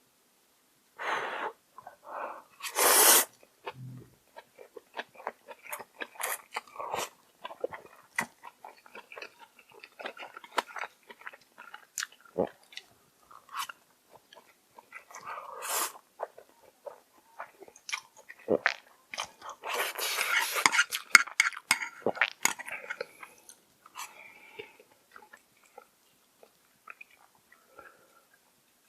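Close-up eating sounds: instant noodles being slurped in several noisy bursts, the longest and loudest about two thirds of the way through, between stretches of chewing with many short wet clicks and smacks.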